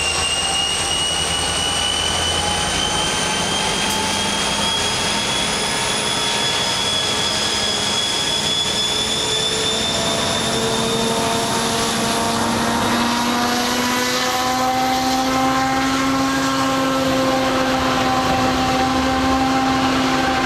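A freight train's flatcars loaded with highway trailers rolling past at close range, a steady rumble with whining tones that climb slowly in pitch as the train picks up speed.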